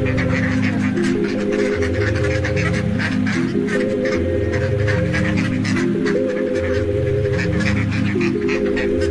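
A flock of white domestic waterfowl honking and calling over background music, whose held chords change about every two seconds.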